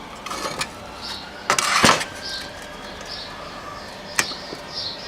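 Small birds chirping in the background, with a loud knock or scrape about a second and a half in and a sharp click a little after four seconds.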